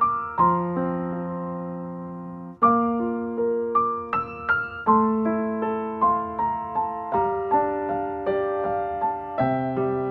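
Background music: soft piano playing slow chords and notes, each note striking and fading, with a held chord in the first few seconds.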